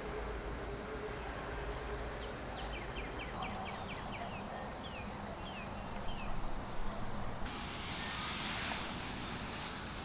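Woodland ambience: a steady high insect drone with small birds chirping in quick repeated trills, and a short cluster of louder soft bumps a little past the middle.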